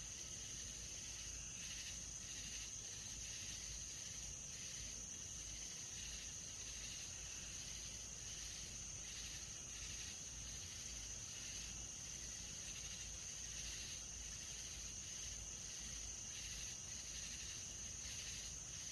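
Nighttime insect chorus: a steady, faint high-pitched trill, with softer pulsing chirps repeating beneath it.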